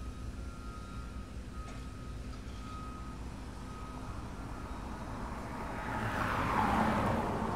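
Vehicle engine running with a steady low rumble, and a vehicle passing close by that swells from about five and a half seconds in and fades near the end.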